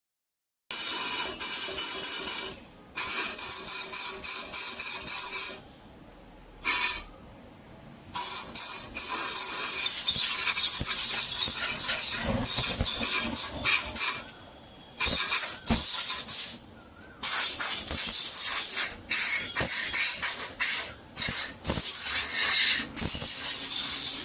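Loud pressurised hissing spray, starting and stopping many times in bursts from a fraction of a second to several seconds long.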